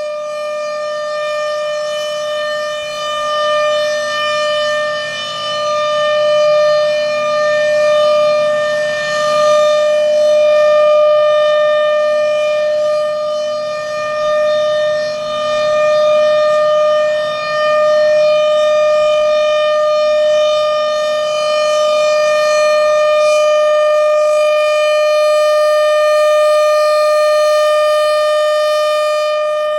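Federal Sign & Signal Thunderbolt 1000 outdoor warning siren with a blower sounding the full alert: one loud, steady tone held at a constant pitch, swelling and fading in loudness as the rotating siren head turns.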